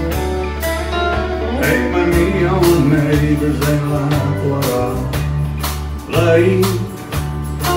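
Live country band playing: a man singing over strummed acoustic guitar, electric bass and drums keeping a steady beat of about two hits a second.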